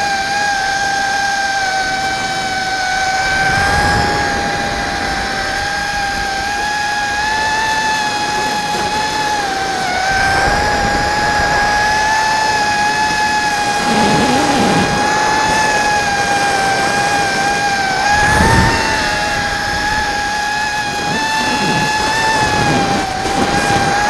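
Mini quadcopter's motors and propellers whining steadily, heard from its onboard camera, the pitch wavering slightly as the throttle changes. A few brief low rumbles come and go.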